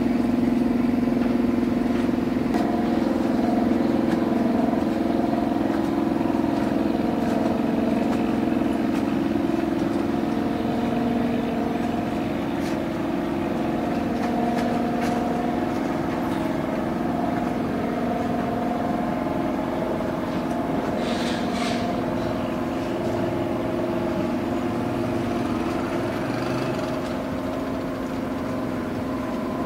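Boat engine running steadily with an even, unchanging drone, slowly getting a little quieter.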